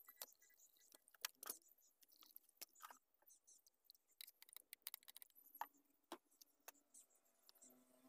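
Near silence broken by faint, scattered clicks and taps of plastic bottles and a plastic cup being handled, the loudest a few sharp clicks about a second in.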